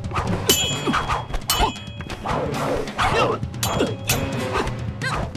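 Staged martial-arts fight sound effects over dramatic background music: about four sharp metallic clangs of blades striking, each ringing briefly, mixed with hits.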